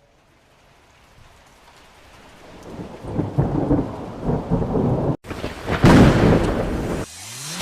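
Rain with rumbling thunder, fading in from near silence and growing loud, with a brief break about five seconds in. Near the end, a rising sweep cuts in.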